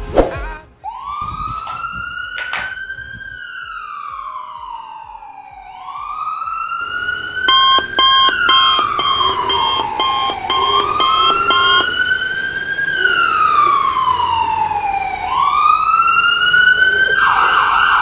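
Emergency-vehicle siren wailing, each cycle sweeping quickly up and then sliding slowly down, about every five seconds. A fast electronic beeping, about two beeps a second, joins it for several seconds in the middle, and a sharp click comes right at the start.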